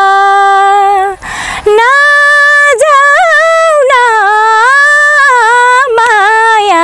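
A woman singing unaccompanied, holding long drawn-out notes with small ornamental turns. She takes a quick breath about a second in.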